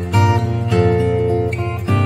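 Background music of strummed acoustic guitar chords.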